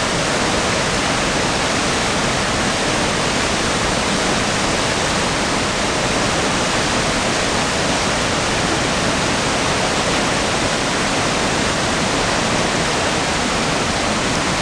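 Flooded river rapid and waterfall drop, a steady loud rush of whitewater running at flood flow of about 9,000 to 10,000 cfs.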